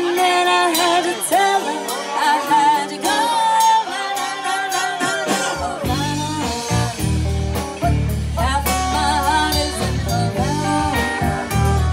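Live rock band: a woman singing lead over electric guitar and drum kit. The bass comes in heavily about halfway through.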